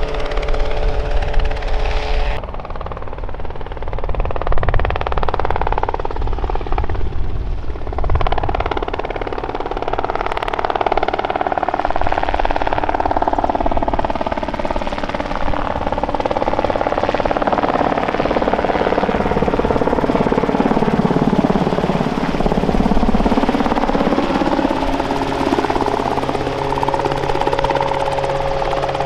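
Small piston-engined kit helicopters in flight close by: the engine drone and the beat of the main rotor. The sound changes abruptly about two seconds in, then slowly rises and falls in pitch as the helicopters pass.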